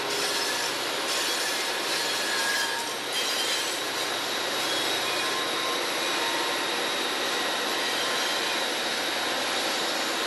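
Several EMD GP-series diesel locomotives passing close by under power, engines working with steady rumble and rail noise, and a thin steady squeal from the wheels on the curve.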